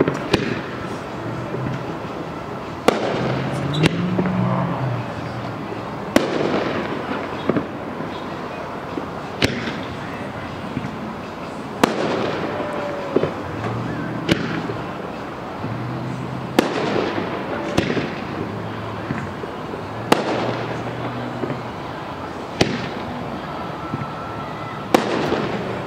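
Aerial firework shells bursting overhead: about a dozen sharp bangs, one every two to three seconds, each trailing off over a second or so.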